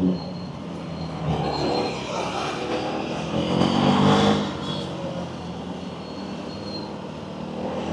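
Motorcycle engine accelerating: the revs rise briefly about a second and a half in, climb harder to a peak around four seconds, then ease off.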